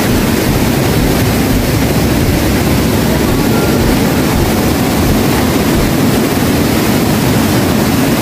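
Mountain river water rushing over a rock cascade: a loud, steady rush of whitewater.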